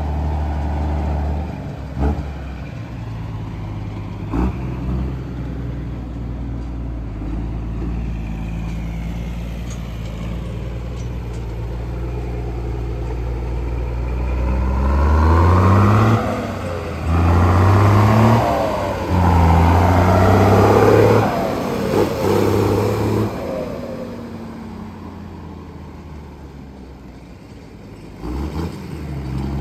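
Car engine idling with a low steady hum, then revved in several quick blips through the middle stretch, each rising and falling in pitch, before it settles back to idle.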